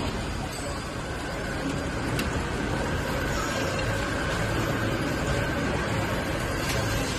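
Chain link fence machine running: a steady mechanical drone with a faint high whine and two light clicks.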